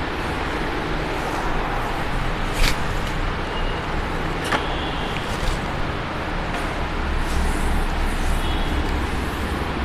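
Steady low rumble of background noise, with two sharp clicks about two and a half and four and a half seconds in.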